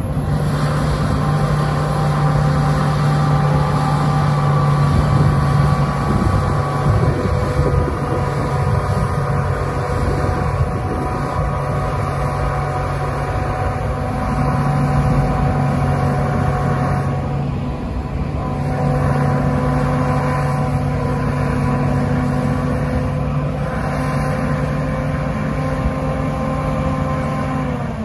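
Engine of a NICHIJO HTR265 rotary snowplow running at a steady high working speed while it blows snow into a dump truck: a constant drone whose pitch drops near the end. Passing road traffic, including a container truck close by at the start, rumbles underneath.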